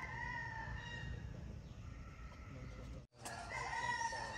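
Two drawn-out animal calls, each about a second long and held at a steady pitch: one at the start and one about three and a half seconds in. A steady low hum runs under them, and the sound drops out for a moment just after three seconds.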